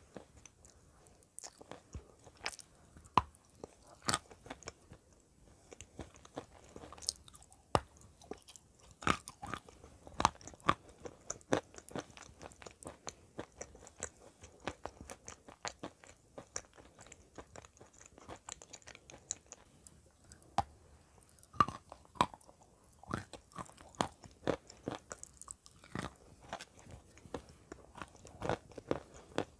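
A chunk of white clay coated in wet grey clay being bitten and chewed, with many sharp crunches at irregular intervals.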